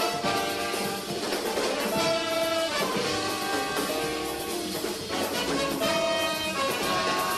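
Live jazz horn section of trumpets, trombone and tenor saxophone playing held notes together over a drum kit.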